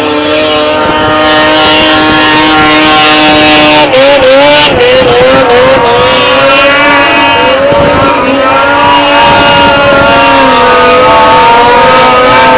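Racing snowmobile engine running loud at high revs, a steady high whine for about four seconds that then wavers up and down in pitch as the sled skims across water.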